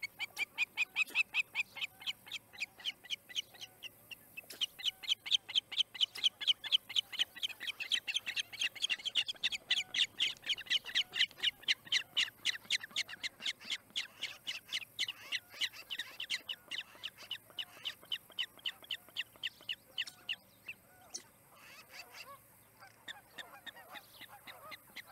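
Osprey alarm calling: a long, rapid series of sharp, high whistled notes, about three a second, pausing briefly near the end, raised as another bird flies by the nest.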